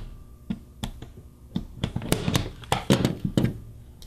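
Spring-loaded impact punch-down tool, set to low impact, firing a series of sharp snaps about every half second as it seats and trims each wire into the 110 slots of a keystone jack.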